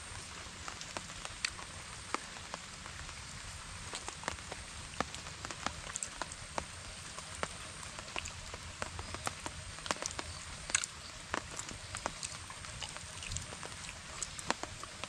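Light rain falling: a steady hiss with irregular sharp ticks of drops striking close by.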